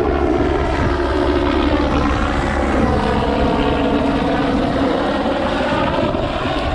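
Loud vehicle engine running steadily, its pitch drifting slightly up and down.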